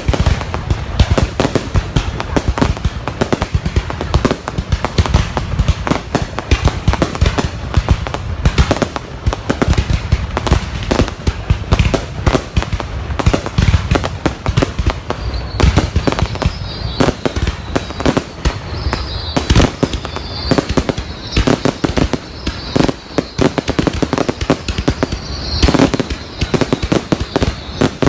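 Fireworks going off in a dense, continuous barrage of bangs and crackles, many a second, with no break. From about halfway through, a faint wavering high whistle runs over the bangs.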